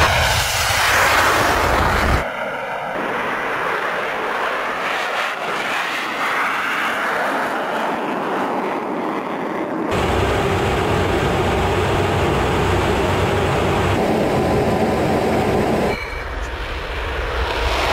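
Sukhoi Su-34's twin jet engines and airflow heard from inside the cockpit: a steady noisy rush that changes abruptly about two, ten and sixteen seconds in as the footage cuts between flight and the runway.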